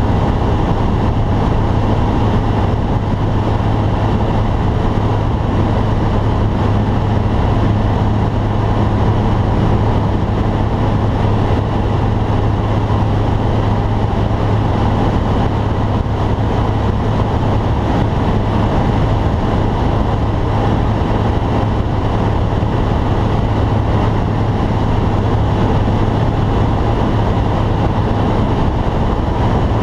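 Light aircraft in flight heard from inside its cabin: a steady, loud drone of engine and propeller with rushing air noise, unchanging throughout.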